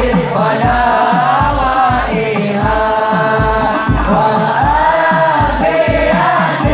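Music: a sung vocal line over a steady low drum beat, about two hits a second.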